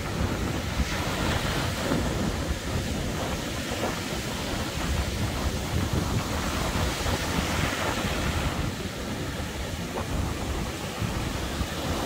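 Sea surf breaking and washing up a sandy beach in a steady rushing wash, with wind buffeting the microphone as a rumble underneath.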